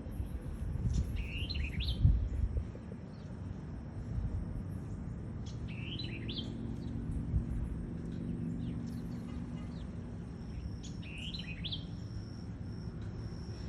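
A songbird sings three short phrases of quick, swooping whistled notes, about five seconds apart, over a low rumble that is heaviest in the first few seconds.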